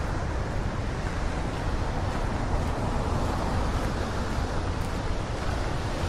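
Ocean surf washing on rocky shore and wind blowing on the microphone, a steady noise heaviest in the low end, without distinct breaks or impacts.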